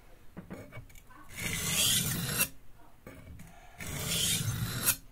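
Steel Santoku knife blade drawn across a wet flat sharpening stone: two long gritty scraping strokes about two and a half seconds apart, sharpening the edge toward a burr.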